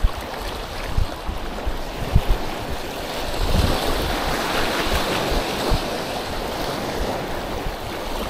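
Sea waves washing onto a beach, the surf swelling and easing, with gusty wind rumbling on the microphone.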